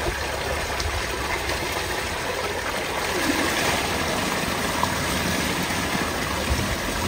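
Tubewell water gushing steadily from a pipe and splashing into a concrete tank, falling onto a person ducked under the stream.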